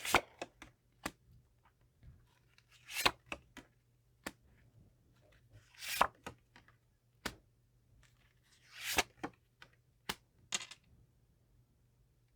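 Tarot cards being handled and laid out on a table: sharp snaps and taps, with three longer swishes of cards sliding, about three seconds apart.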